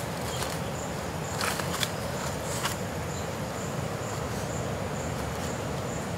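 Insects chirping: a high, thin pulsing note repeating about twice a second over a steady low background rumble, with a few faint clicks in the first few seconds.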